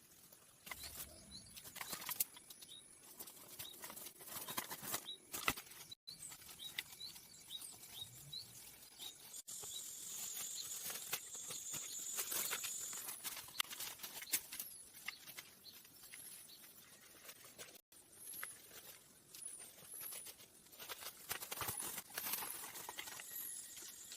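Small birds chirping in short repeated calls over irregular clicks and knocks of handwork, with a thin steady high note for a few seconds near the middle.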